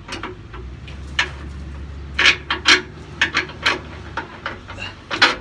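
Long-handled ratchet wrench worked back and forth on a rear suspension link bolt, giving a string of short, irregular rasping ratchet strokes. A low steady hum sits underneath and stops about four seconds in.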